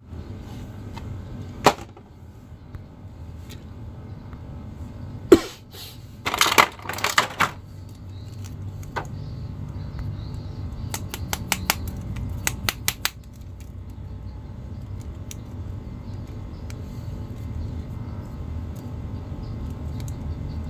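Plastic action figures and clear plastic blister trays being handled: scattered clicks and rustles, with a sharp knock about five seconds in, a short cluster of crackles around six to seven seconds, and a run of quick small clicks around eleven to thirteen seconds, over a low steady hum.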